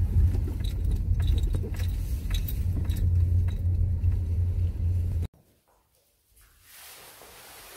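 Car driving slowly on a rough mountain road, heard from inside the cabin: a steady low rumble with scattered clicks and rattles. It cuts off suddenly about five seconds in, leaving a faint steady hiss of outdoor air.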